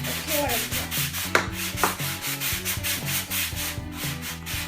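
A small piece of mulga wood being sanded by hand, in quick back-and-forth rubbing strokes about three a second, with a couple of light knocks early in the strokes.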